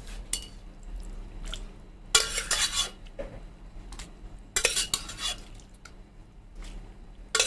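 Spoon scraping and clinking against a cooking pan in two longer strokes, about two and five seconds in, with light knocks between, as boiled pasta is spooned into a pan of white sauce.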